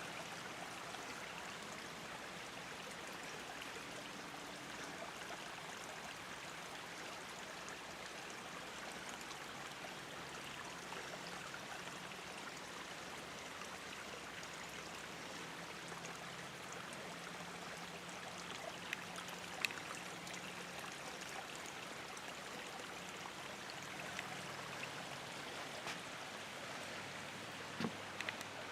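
Water running steadily down a small waterfall cascade, with a couple of faint ticks late on.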